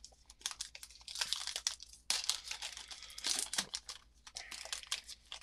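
Trading card pack wrapper being torn open and crinkled by hand: irregular crackling and ripping of the wrapper.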